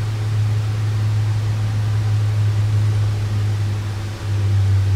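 A steady low machine hum, the loudest sound, which drops slightly in pitch about four seconds in. It sits over a faint even hiss.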